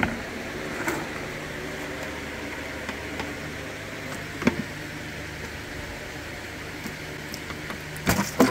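A few sharp metal clicks and knocks from a ratchet working the oil pan bolts of an engine on a stand, with a small cluster near the end, over a steady low hum.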